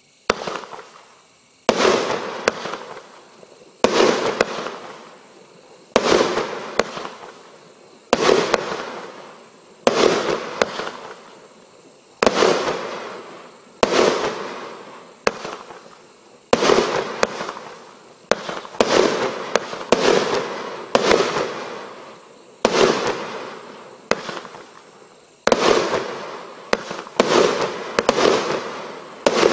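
A Panda Fireworks 'Sky Devil' 19-shot consumer firework cake firing its shots one after another. Each shot is a sharp bang that fades out over a second or so. The shots come about every two seconds at first and quicken to about one a second in the last third.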